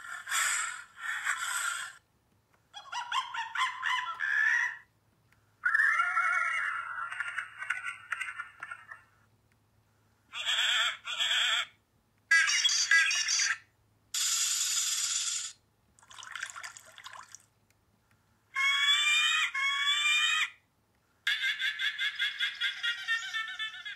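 A series of short, varied animal sound effects played back through small laptop speakers, each lasting a second or two, with brief silent gaps between them.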